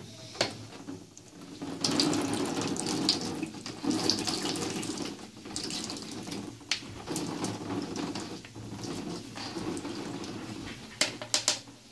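Water draining and dripping from boiled spinach through a plastic colander into a basin as a spatula presses and stirs the leaves. A few sharp knocks from the spatula against the colander.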